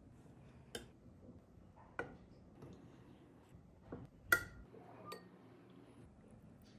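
Stainless steel kitchen tongs clicking against a glass baking dish while turning chicken strips in flour: about five separate light clinks, the loudest a little after four seconds in.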